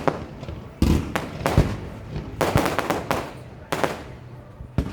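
Fireworks going off: about ten sharp bangs at uneven spacing, some close together, several trailing off in a short echo.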